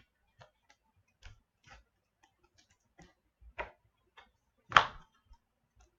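Trading cards and card packs being handled: irregular light clicks and taps, with one louder knock about five seconds in.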